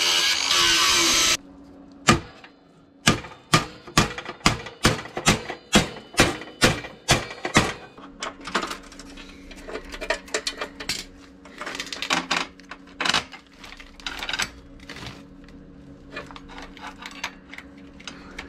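Ryobi angle grinder cutting steel, cut off about a second and a half in. Then a run of about a dozen sharp metal knocks, roughly two a second, followed by irregular clinking and rattling of a #41 roller chain being handled and fitted onto a sprocket, over a faint steady hum.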